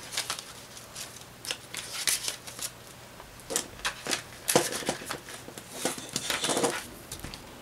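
Paper banknotes and clear plastic binder pouches being handled: irregular rustling and crinkling with scattered light clicks and taps, loudest about halfway through and again near the end.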